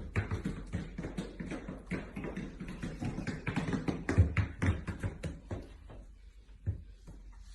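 A quick, irregular run of taps and knocks with a few heavier thumps, thinning out near the end.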